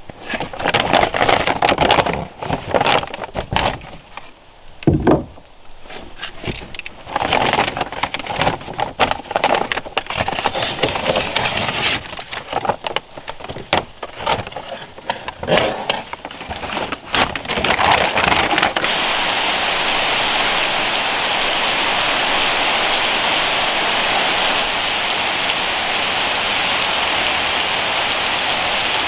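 Stiff brown building paper crinkling and rustling as it is handled against a log wall, with sharp taps from a small hammer fastening it. About nineteen seconds in, this gives way abruptly to steady rain falling in a forest.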